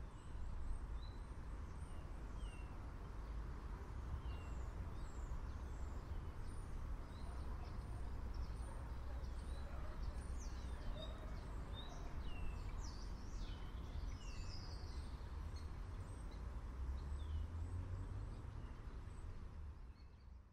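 Outdoor ambience of many small birds chirping, short quick falling chirps one after another, over a steady low rumble. It fades out near the end.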